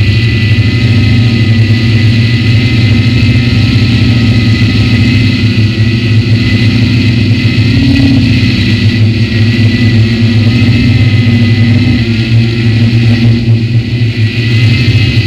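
Multirotor drone's motors and propellers running steadily, a loud whirring hum with a steady high whine, picked up by the drone's own camera.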